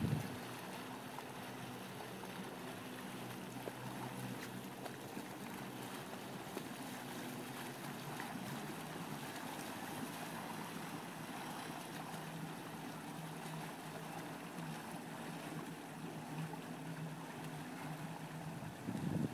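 Volvo Penta 5.0 GL V8 sterndrive of a 2002 Glastron SX209 cuddy cabin boat running steadily at low speed, a low even drone.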